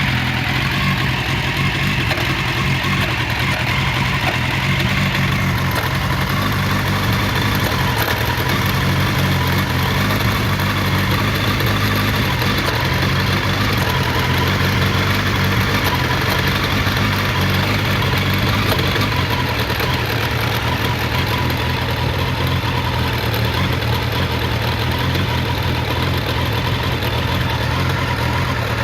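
Suzuki Bandit 1200S's oil-cooled inline-four engine running at idle just after a cold start, coughing.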